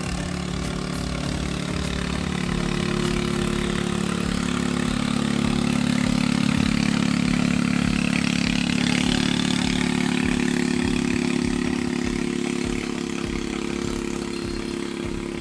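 Engine of a narrow wooden longboat passing by: a steady drone that grows louder toward the middle and fades away near the end.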